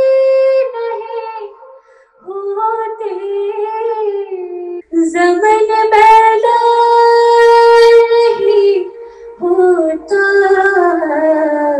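A woman reciting the Qur'an unaccompanied in a melodic, ornamented style: long held notes and slow glides in pitch, broken by short breath pauses about two seconds in and again near the three-quarter mark.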